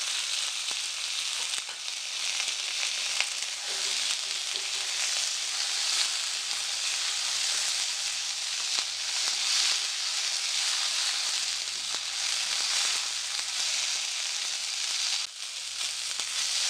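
Chopped onion, tomato, garlic, ginger and green chilli sizzling in hot mustard oil in a kadhai: a steady frying hiss, briefly dipping about 15 seconds in.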